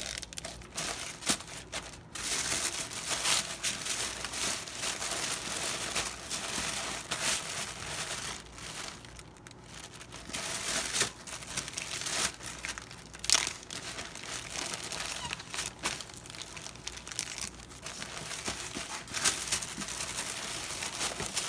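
Irregular crinkling and rustling of a plastic zip-top bag being pressed flat to push the air out, then of rose-print wrapping being folded around it by hand, with sharp crackles here and there.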